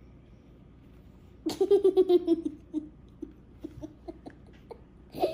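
A young girl laughing: a loud burst of giggling about a second and a half in, trailing off into a few short chuckles.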